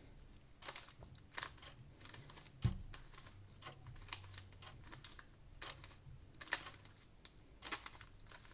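Rubik's cube being turned through a sequence of moves, its plastic layers clicking and clacking in quick, irregular turns, with one louder knock about two and a half seconds in.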